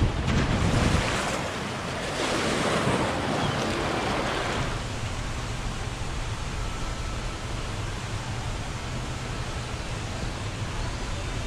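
Water rushing and splashing as a raft slides into a water slide's run-out pool, loudest for the first four seconds or so. After that, steady wind buffets the microphone with a low rumble.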